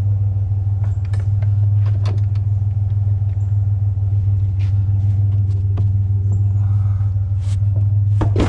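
Pickup truck running with a steady low drone of engine and road noise, with a few faint brief clicks and rattles.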